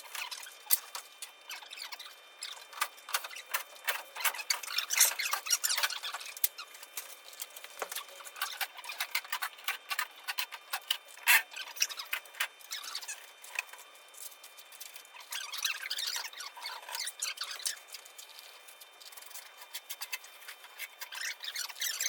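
Irregular clicks, taps and short squeaks of an air-conditioning fan coil unit being worked on by hand during cleaning, busiest about a third of the way in, with a sharp knock about halfway through.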